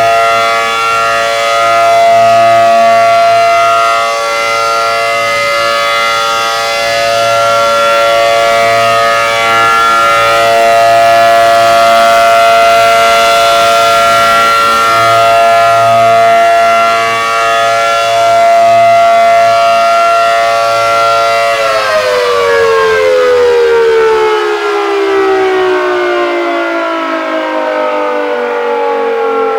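ACA Allertor 125 outdoor warning siren sounding its steady alert signal: a loud, held chord of several tones. About two-thirds of the way through it stops and winds down, the pitch falling steadily.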